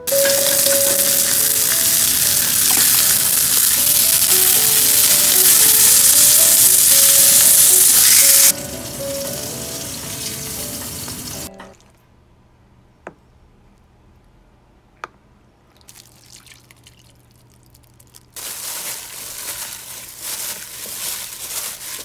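Steak searing in a hot pan, a loud steady sizzle, under soft piano music; the sizzle drops about eight seconds in and stops about three seconds later. Then two sharp knife taps, and near the end a crackly rustle of hands tossing sliced vegetables in a stainless-steel bowl.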